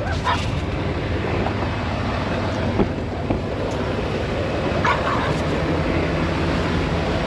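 Diesel semi-truck engine idling with a steady low hum, with a couple of short knocks about three and five seconds in.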